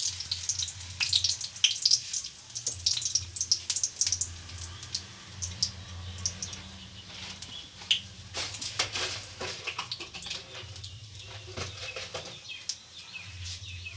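Cumin seeds crackling and spluttering in hot oil in a steel kadai, the tempering (tadka) stage. Irregular sharp pops, thickest in the first couple of seconds and again around eight to nine seconds in, over a low steady hum.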